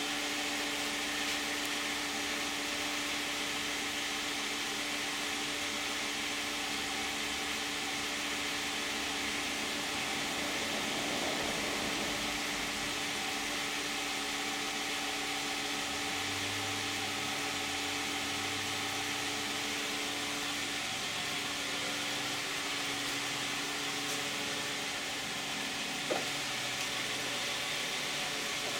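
2010 Toyota Camry's 3.5-litre V6 idling steadily, heard from in front of the car with the hood closed, which muffles it; it sounds pretty quiet.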